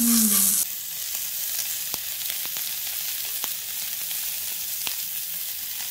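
Slices of Sendai wagyu beef sizzling on a hot tabletop grill plate: a steady hiss broken by a few sharp crackles.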